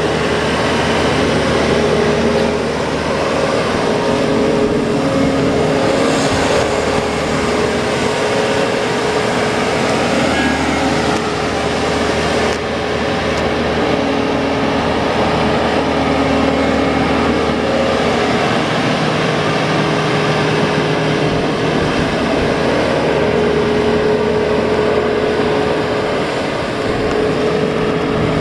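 Kubota V3300T four-cylinder diesel engine of a Jacobsen HR9016 mower running steadily, with a steady whine over the engine note.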